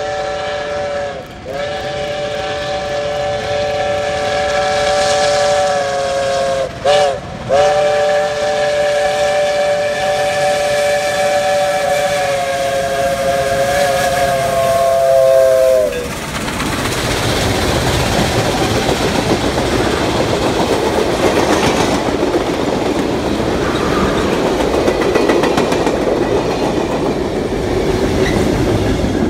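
Iowa Interstate's Chinese QJ 2-10-2 steam locomotive blowing its multi-note whistle as it approaches. It gives a long blast, a short one, then a long one, the pitch sagging as the whistle closes about sixteen seconds in. Then the train passes close by in a steady rush of exhaust and wheel-and-rail noise with clickety-clack.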